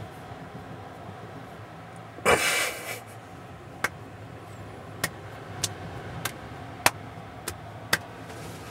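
Steady low rumble of a car on the road, with a short rustling burst about two seconds in and a string of sharp, irregular clicks in the second half.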